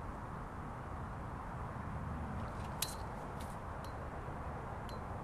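Steady outdoor background noise, mostly a low rumble with a light hiss, with a few small clicks from the phone being handled as it is swung around.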